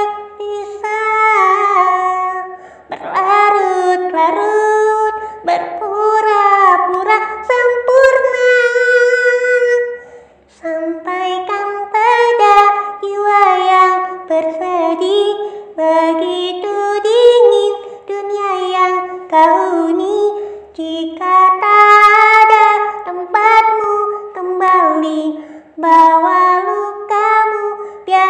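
Background song: a high voice singing a melody in short phrases, with a brief pause about ten seconds in.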